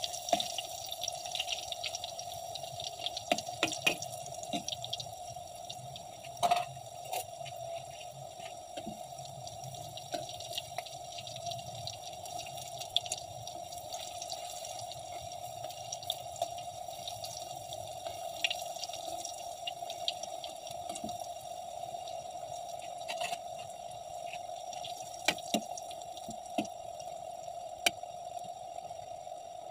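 Breaded pili deep-frying in hot oil in a wok: a steady sizzle with many scattered sharp pops and crackles, over a steady hum.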